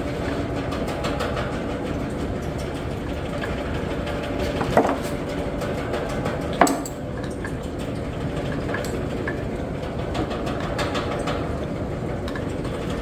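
A steady machine hum, with scattered sharp metallic clicks, two louder ones near the middle, as a combination wrench tightens a threaded fitting on an air-suspension strut.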